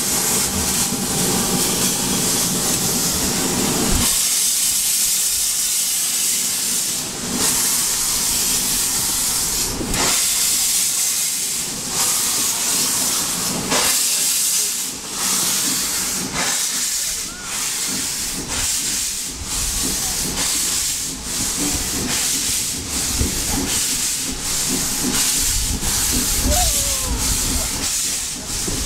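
Steam locomotive working along the line, heard close from its cab: a steady loud hiss of steam with a regular beat of exhaust chuffs running through it.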